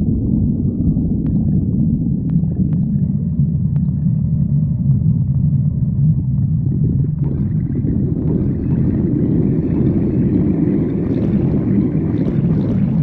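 A person's stomach growling: a continuous low rumbling gurgle that grows brighter and fuller about seven seconds in, with a few faint clicks in the first few seconds.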